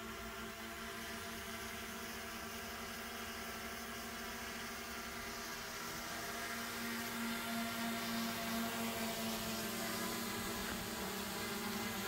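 Propellers of small DJI Mini quadcopter drones hovering, a steady hum of several held tones. It grows louder about halfway through as a drone comes close.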